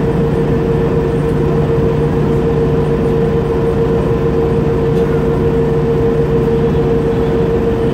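2004 Orion transit bus idling while stopped, heard from inside the cabin: a steady engine drone with a constant mid-pitched whine over it.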